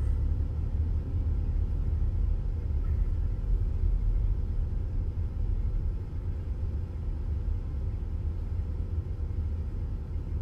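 Low, steady rumble of a car driving, heard from inside its cabin, easing slightly about six seconds in.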